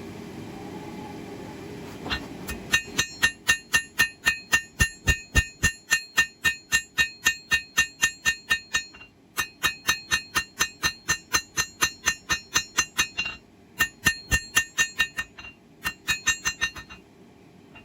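Blacksmith's hammer striking hot steel on the anvil, about three to four blows a second in runs with short pauses, each blow ringing brightly: forging the bevels into a small 1084 high-carbon steel knife blade. For the first two seconds only a steady rushing noise is heard.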